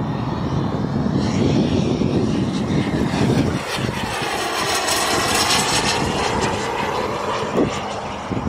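Small gas turbine of a BVM Ultra Bandit RC jet flying past: a high whine that swells about halfway through with a sweeping, flanging sound as it passes, then fades. Low rumble underlies the first few seconds.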